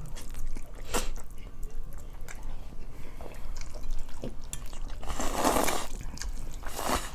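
Close-miked eating of spaghetti and salad: mouth clicks and chewing, with a louder noisy burst about five seconds in and a shorter one near the end.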